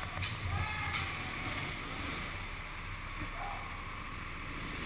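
Go-kart driving through a turn on an indoor concrete track, heard from the driver's head-mounted camera: a steady rush of motor, tyre and wind noise, with a couple of short faint squeaks.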